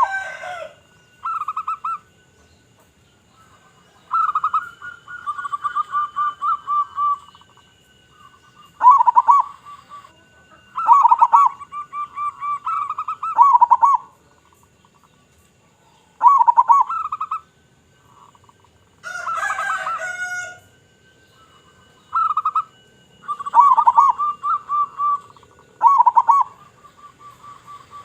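Local perkutut (zebra dove) cooing in repeated phrases, each a few low hoots running into a fast rattling trill, a new phrase every few seconds. About two-thirds of the way in comes one louder, harsher call of a different kind.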